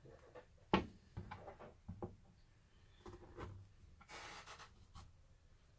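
Kitchen knife scoring and scraping the flesh of a halved zucchini on a plastic cutting board: a series of short scraping strokes, with one sharp knock on the board just under a second in, the loudest sound.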